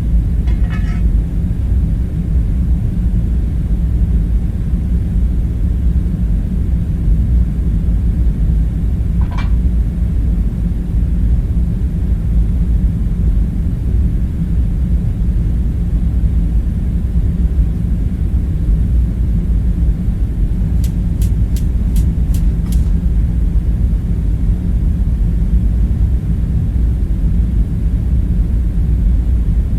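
Steady low rumble of the bunker's room ambience, like ventilation or machinery hum. A short clink comes about half a second in, a single tick around nine seconds, and a quick run of six sharp clicks a little past twenty seconds.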